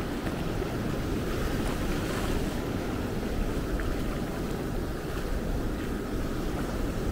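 Atlantic Ocean surf washing steadily onto the beach, with wind rumbling on the microphone.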